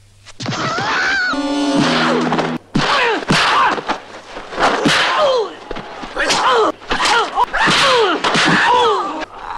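Martial-arts film fight audio: a man's sharp shouts and cries, each falling in pitch, one every second or so, each struck with a thwacking blow.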